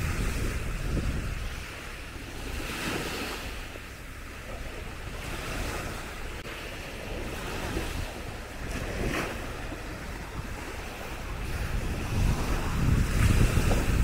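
Small Baltic Sea waves washing onto a sandy shore in soft, repeated swashes, with wind buffeting the microphone in a low rumble that is heaviest at the start and near the end.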